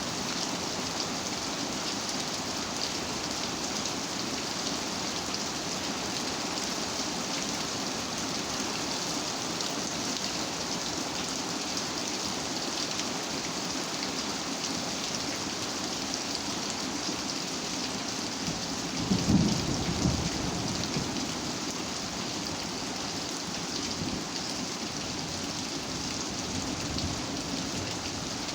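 Steady rain falling. About two-thirds of the way through there is a brief low rumble, the loudest moment.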